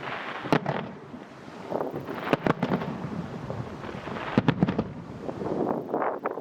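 Aerial fireworks shells bursting: sharp booms about every two seconds, some in quick pairs, over a continuous rumble and crackle of other bursts.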